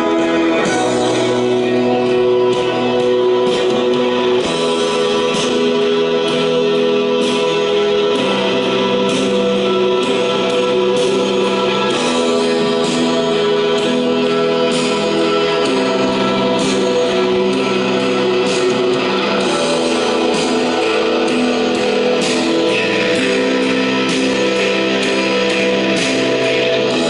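A song led by guitar, with some singing, played back through Dell A225 computer speakers.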